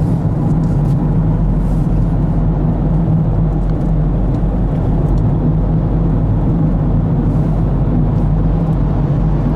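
Steady rumble of a car driving, engine and road noise, heard from inside the cabin.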